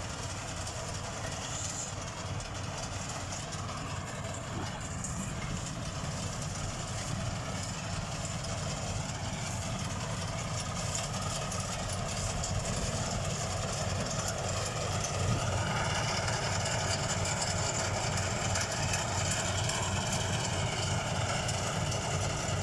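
Engine-driven rice thresher running steadily, with a pulsing low rumble. It gets a little louder past halfway, and a higher whine comes in about two-thirds through.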